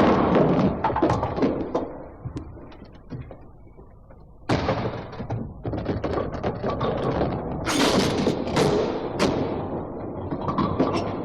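Bowling alley: heavy bowling balls rolling on wooden lanes and pins crashing and clattering. A clatter fades over the first two seconds, a ball lands with a sudden thud about four and a half seconds in, and a dense crash of pins comes about eight seconds in.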